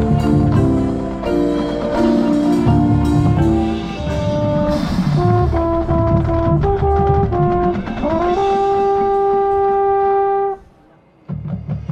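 Marching band brass and drums playing a run of loud chords, then sliding up into a long held brass chord that cuts off sharply about two seconds later.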